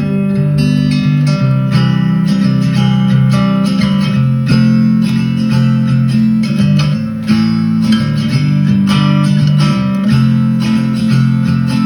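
Acoustic guitar music, strummed chords over strong low notes, playing loudly through a Bose S1 Pro+ portable speaker.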